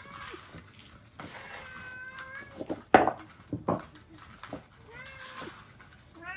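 Domestic cats meowing, about three separate meows. Two sharp knocks come near the middle and are the loudest sounds.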